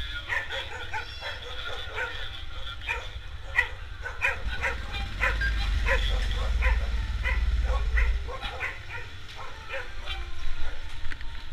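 Dogs barking over and over in quick succession, with the low rumble of a motorcycle engine running underneath, a little louder midway through.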